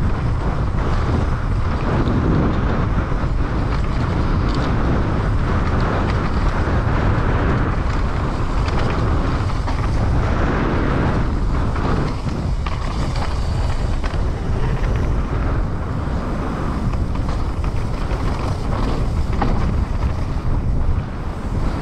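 Trek Slash 9.9 enduro mountain bike ridden fast down a dirt trail: steady wind rushing over the camera microphone, with the rolling of the tyres and a constant clatter of the bike over the rough ground.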